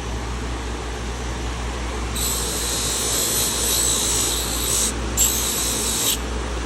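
A small power tool running in three bursts of high-pitched hiss, the first about two seconds in and lasting nearly three seconds, then two shorter ones, over a steady low hum of machinery.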